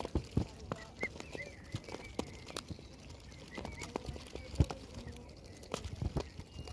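Mute swan cygnets pecking grain from a plastic tub: irregular clicking and rattling of bills in the seed and against the tub, with one louder knock about halfway through. A few faint, short high peeps from the cygnets come in between.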